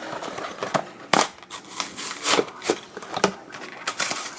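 Plastic toy parts and packaging being handled: irregular clicks, taps and rustles.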